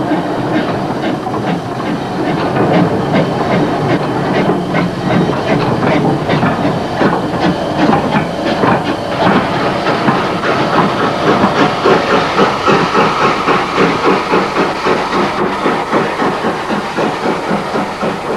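GER E4 (T26) 2-4-0 steam locomotive working along a platform: a regular exhaust chuff of about two beats a second with a hiss of steam, the beats growing more distinct in the second half.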